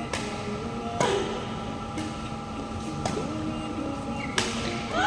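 Badminton rackets striking a shuttlecock back and forth in a rally: five sharp hits about a second apart, each with a short echo.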